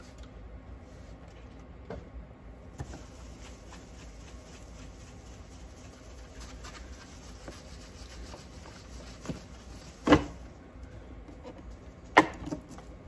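Soft steady scratching of a wet sponge sanding pad rubbed over a plastic light-bar lens, with two sharp knocks, about ten and twelve seconds in, that are louder than the sanding.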